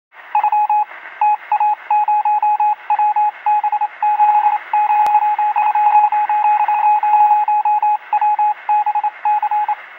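Morse code: a single steady-pitched beep keyed on and off in a fast, irregular run of short and long pulses, over a faint narrow-band hiss. A single sharp click comes about halfway through.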